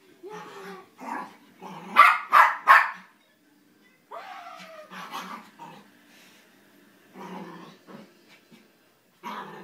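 Havanese puppy barking in play: a run of three sharp, loud barks about two seconds in, with softer barks and yips scattered before and after.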